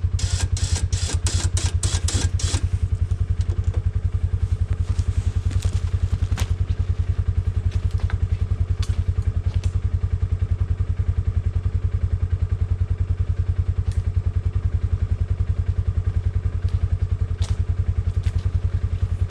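Polaris Sportsman 570 ATV's single-cylinder engine idling steadily with a fast, even low pulse. A quick run of sharp clicks sounds in the first couple of seconds, with a few lone clicks later.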